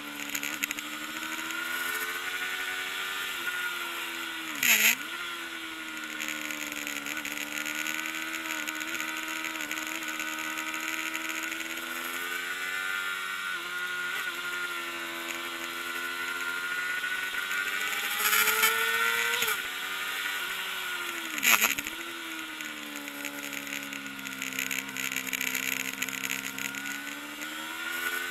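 Kawasaki ZXR400 race motorcycle's inline-four engine at high revs, its pitch climbing and falling as it goes through the gears. The revs dip sharply with a short loud burst about five seconds in and again about twenty-one seconds in.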